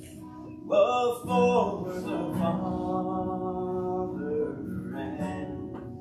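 Music: a man singing a song with long held notes, with acoustic guitar.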